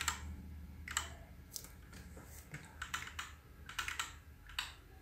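Faint, irregular clicks of a computer keyboard, scattered about every half second, over a low steady hum.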